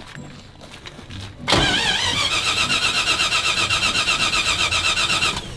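Car engine revved hard, coming in suddenly about a second and a half in and holding at high revs, its pitch wavering rapidly up and down.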